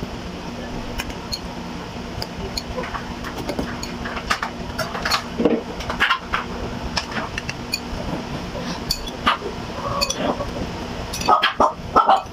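Metal spoon clinking and scraping against stainless steel dog bowls as diced cooked vegetables are spooned in: scattered light clinks, coming faster and louder near the end.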